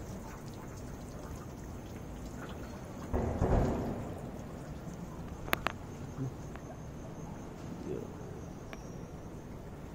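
Steady trickle and splash of water from a small rock fountain. A low rumble swells about three seconds in, and two sharp clicks come in quick succession about halfway through.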